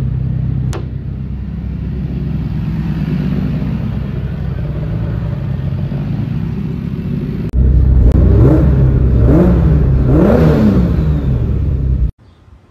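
Turbocharged BMW S52 straight-six running steadily, in its first runs on a freshly fitted standalone ECU. About seven and a half seconds in it gets louder and is revved three times, the pitch climbing and dropping with each blip.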